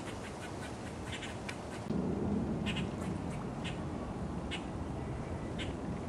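Squirrel giving short, sharp, quacking alarm calls, one every half second to a second, over a low background rush that grows louder about two seconds in.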